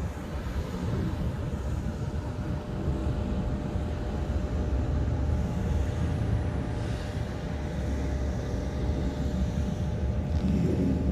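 Steady low outdoor rumble with a fluttering texture, swelling a little near the end.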